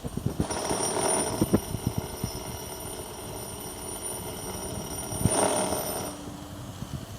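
Router milling flutes into marble. A steady high whine starts about half a second in and stops about six seconds in. The cutting noise grows louder around a second in and again about five seconds in, with scattered knocks.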